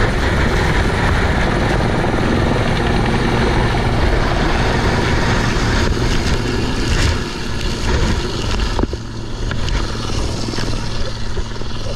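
Helicopter running loud with rotor and engine noise. About seven seconds in it drops back, leaving a steadier, lower engine hum.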